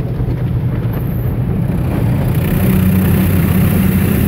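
Automatic car wash machinery heard from inside the car's cabin: a loud steady rumble and hum. A rushing hiss comes in about two seconds in, and a steady hum tone grows stronger just after.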